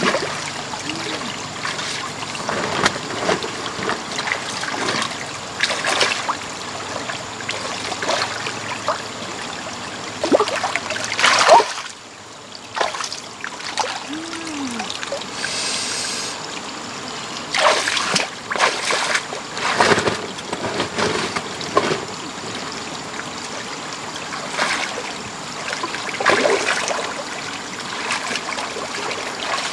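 Water splashing and trickling, with irregular splashes coming and going; the sound drops away briefly about twelve seconds in.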